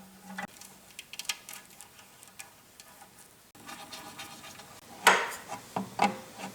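Small clicks, clinks and rustles of wires and small parts being handled, with a louder rustle about five seconds in.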